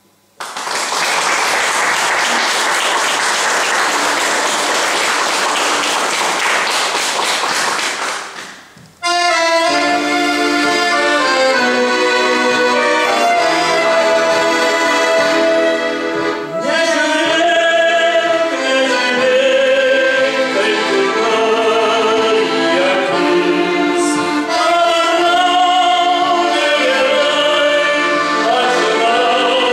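Audience applauding for about eight seconds. Then live music begins with sustained instrumental chords that carry on to the end.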